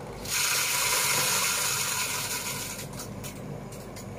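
A crowd of fish churning and splashing at a pond's surface: a dense, fizzing splash that starts suddenly about a third of a second in, holds for a couple of seconds, then thins to a few scattered small splashes.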